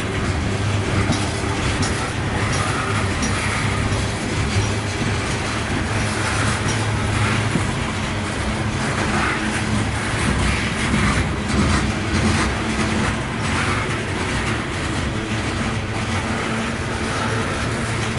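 Loaded coal hopper cars of a freight train rolling past, a steady rumble of steel wheels on rail with scattered clicks and clanks.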